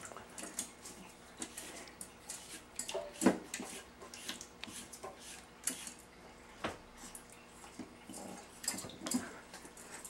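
West Highland white terrier puppy splashing in water in a stainless-steel bowl, with irregular splashes and clinks of the metal bowl in its holder. The loudest knock comes about three seconds in.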